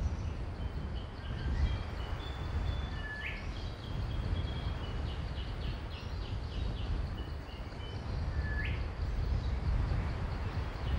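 Birds chirping over a steady low rumble, with an upward-sweeping whistle about three seconds in and again near the end, and a quick run of repeated chirps in between.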